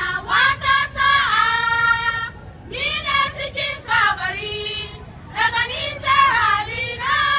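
A group of girls singing together in about three phrases of held notes, with short breaks between them.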